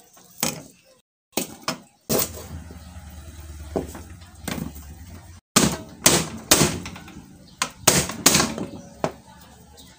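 Cleaver chopping onion and ginger on a plastic cutting board: sharp knocks near the start, then a run of quick, loud chops in the second half, with a low steady hum in the lull between them.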